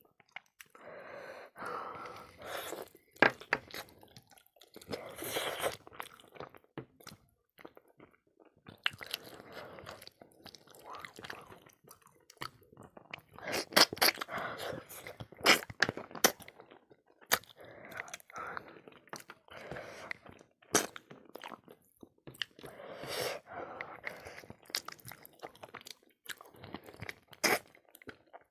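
A person chewing and biting into pork-trotter pickle and rice, eaten by hand, with irregular sharp crunches among wet mouth sounds. The loudest crunches come a few seconds in and around the middle.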